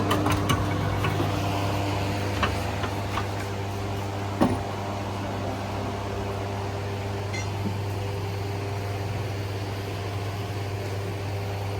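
Steady low mechanical hum, with a few light metallic clicks in the first seconds and one sharper knock about four and a half seconds in.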